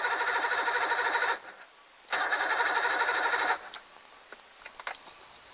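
1987 Mercury 90 hp three-cylinder two-stroke outboard cranking on its electric starter in two bursts, the second beginning about two seconds in, turning over strongly without catching. The owner is unsure whether fuel is not feeding or the motor simply won't start.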